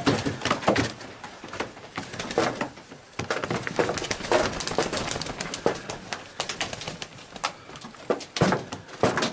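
Maltese pigeons cooing in a loft, with scattered short knocks and scuffs among the birds on the wooden shelf.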